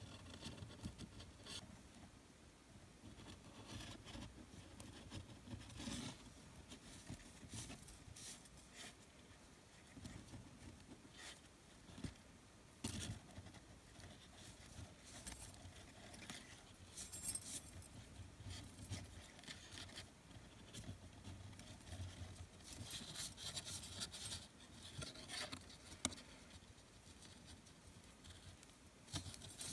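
Faint rustling and scraping of braided Venetian blind cord being pulled strand by strand through a monkey's fist knot by hand, with scattered small clicks.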